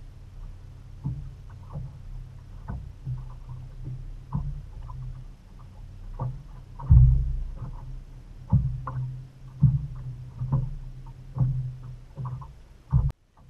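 Small waves slapping and knocking against the hull of a drifting bass boat, in irregular hits about once a second over a low wind rumble on the microphone. The sound cuts off abruptly near the end.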